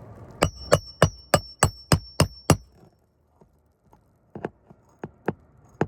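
Hammer striking metal: a quick run of about eight blows, roughly three a second, each with a metallic ring. After a pause come a few lighter knocks.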